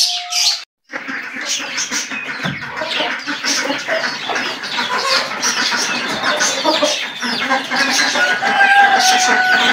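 Several chickens clucking and calling, many short overlapping calls at once, with one longer held call near the end.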